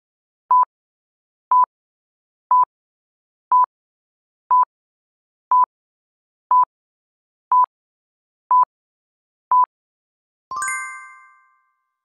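Quiz countdown timer beeping: ten short, identical mid-high beeps, one a second. Just before the end comes a bright chime of several tones that rings out and fades over about a second, the cue for the answer reveal.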